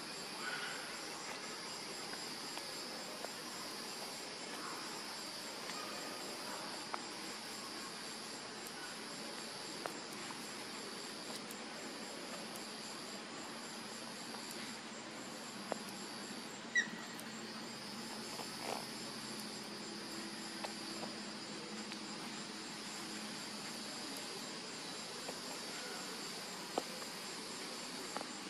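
Steady insect chorus: a continuous high buzz with a faster pulsing layer above it. A few faint clicks come through, and one short rising chirp sounds about halfway through.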